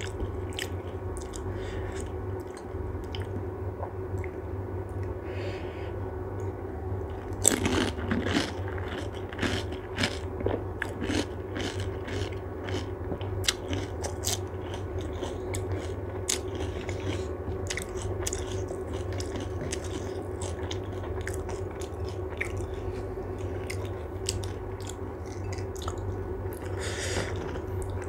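A person biting into and chewing crisp pani puri (golgappa), with many irregular crunches and a loud burst of crunching about seven seconds in, over a steady low hum.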